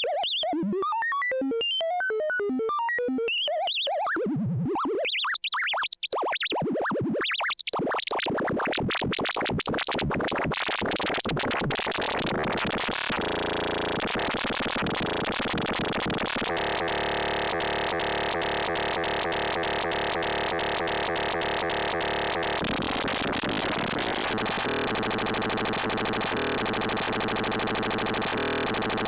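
CubuSynth Engine dual analog VCO synthesizer module (3340-chip oscillators) playing electronic tones: sparse pitched blips and pitch glides for the first few seconds, building into a dense, buzzing drone of many stacked tones that shifts in timbre about halfway and again near the end.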